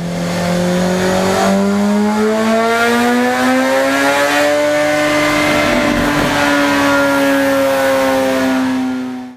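Kawasaki ZX-6R inline-four engine under full throttle in a dyno power run, loaded by the roller: one long, steady climb in pitch that levels off at the top of the rev range, then cuts off abruptly at the end.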